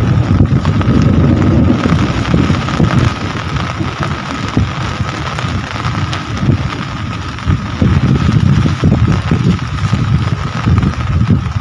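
Rain falling steadily, with a low rumble that swells and fades in gusts underneath and a faint steady high tone.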